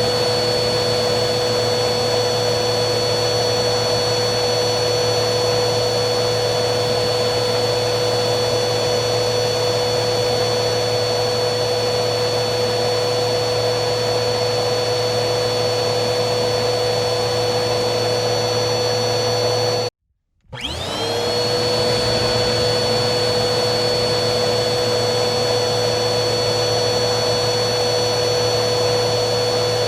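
Vacuum cleaner motor running steadily with a high whine over its airflow noise. About two-thirds of the way through it cuts off abruptly, and after about half a second of silence the motor starts again, its whine rising to full speed within a second.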